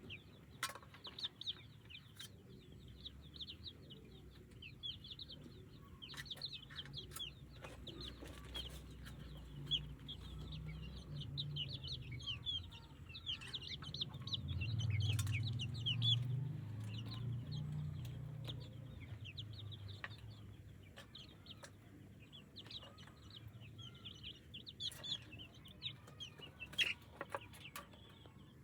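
Chickens: a constant dense chorus of short high peeps, typical of chicks, with hen clucking, scattered sharp clicks, and a low rumble that swells for a few seconds around the middle.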